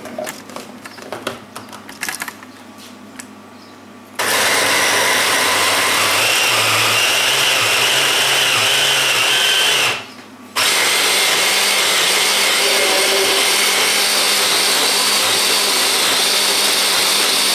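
A few clicks as the top of an electric mini chopper is pressed into place. Then its motor starts suddenly and runs loud and steady, mincing boiled pork and fried onion; it stops for about half a second midway, starts again, and cuts off near the end.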